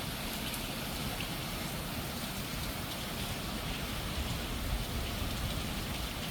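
Steady rain falling, an even hiss with faint scattered drips.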